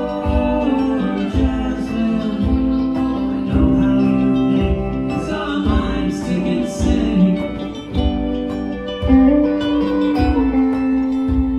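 Live band music: electric guitars, keyboard and hand drums playing together, with a low beat falling about once a second.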